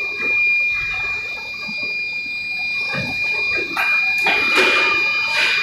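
Machinery in a paper-straw production line running with a steady high-pitched whine, while a rushing hiss swells up a few times in the second half.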